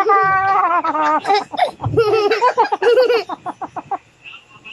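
A woman's drawn-out mock wail, sliding down in pitch, followed by a young girl laughing in quick repeated giggles that die away about four seconds in.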